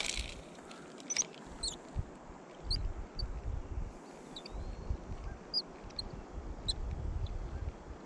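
Wind buffeting the microphone in low, uneven gusts, with scattered short, high bird chirps throughout.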